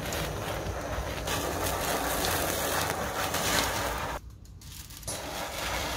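Handheld kitchen blowtorch flame hissing steadily as it sears the surface of a raw steak. The hiss drops out for about a second near the end, then resumes.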